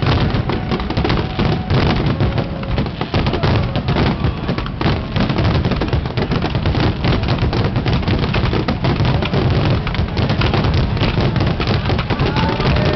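Aerial fireworks shells bursting in rapid succession, a dense, unbroken run of overlapping bangs and crackling.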